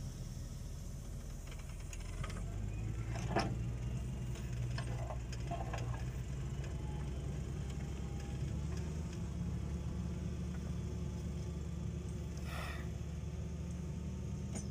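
Fendt 930 tractor's six-cylinder diesel engine running steadily under load while pulling a four-furrow plough through the soil. Its note rises slightly about two seconds in, with a couple of faint knocks from the working plough.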